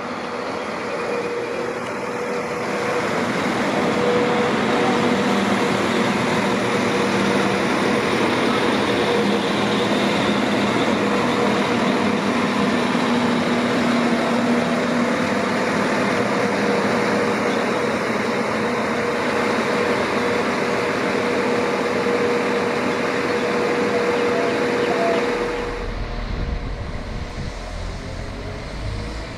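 Northern Class 195 diesel multiple unit running into the station: a loud, steady rumble of wheels on rail and underfloor diesel engines, with a steady whine through it. About 25 seconds in the noise drops away suddenly as the train slows at the platform, leaving a low rumble.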